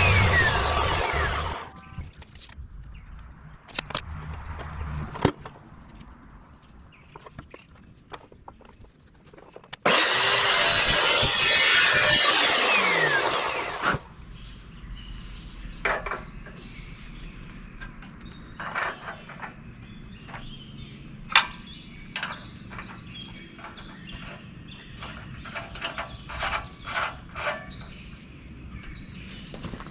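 A high-speed handheld power tool running in two loud bursts, the second winding down with a falling whine, during work on a rusted ball-joint collar in an ATV strut arm. Between and after the bursts come scattered clicks and knocks of tools being handled.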